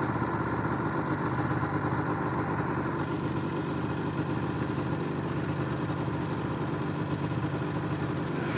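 Snowmobile engine running at a steady, even pitch.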